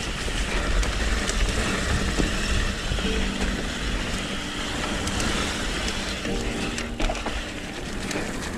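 Mountain bike rolling fast down a dirt singletrack: tyre noise and wind rushing over the bike-mounted microphone. Twice there is a brief buzzing tone, which the rider puts down to leaves caught in the bike making noises.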